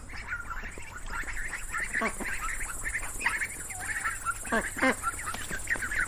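A flock of ducks quacking and chattering continuously, many calls overlapping, with a few louder single quacks standing out about two seconds in and again near five seconds.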